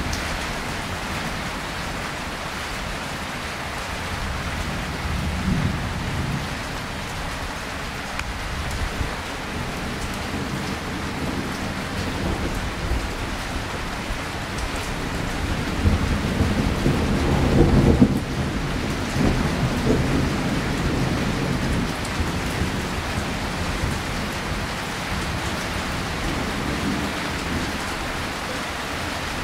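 Tropical rain falling steadily during an electrical storm, with low thunder rumbling several times. The loudest roll builds about halfway through and breaks off suddenly.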